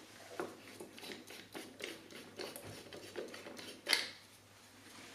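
LED candle bulb being unscrewed from a lamp's small Edison screw holder: a run of faint, irregular scrapes and ticks, with one sharper click a little before four seconds in.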